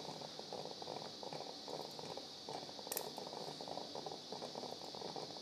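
Quiet operating-room background: a steady hiss with faint crackling, and a single sharp click about three seconds in.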